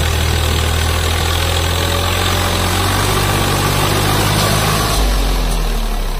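Swaraj 744 FE tractor's three-cylinder diesel engine running steadily while it hauls a heavy straw load. Its note drops lower about five seconds in.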